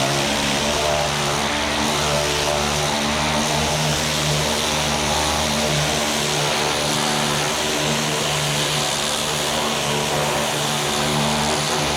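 Ryobi 2000 psi electric pressure washer running and spraying, with a steady motor-and-pump hum under the hiss of the high-pressure water jet.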